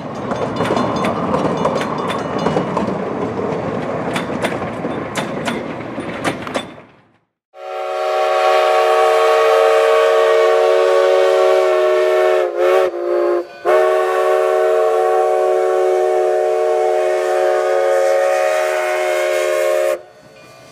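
A passing train rumbling with scattered wheel clicks, then, after a short break, a locomotive's multi-note chord signal held in one long blast of about twelve seconds that sags in pitch and breaks briefly midway before cutting off.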